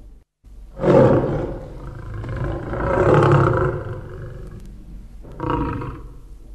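A lion's roar, most likely a sound effect laid over a dog in a lion-mane costume: one long roar of about four seconds starting about a second in, then a shorter one near the end.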